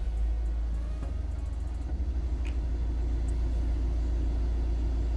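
Diesel engine of a 2014 Opel Vivaro B / Renault Trafic van idling steadily with a low rumble, just after being started.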